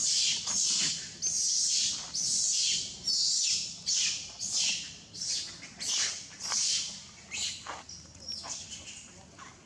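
Baby macaque screaming, a rapid series of high-pitched cries about two a second, each falling in pitch, growing fainter over the last few seconds.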